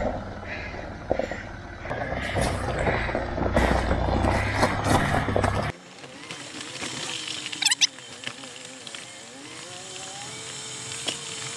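Land Rover Discovery 3 crawling up a rocky gravel track. First comes a loud low rumble with crunching and crackling. After a sudden drop about six seconds in, its TDV6 diesel engine is heard from inside the cab at low revs, its pitch rising and falling with the throttle, with a brief high squeak near the middle.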